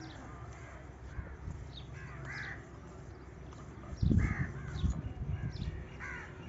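A crow cawing several times, about every two seconds, over low rumbling noise, with a louder spell of low thuds a little past halfway.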